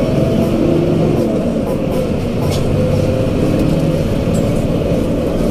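Intercity coach running along a town street, heard inside the cabin: a steady engine and road rumble.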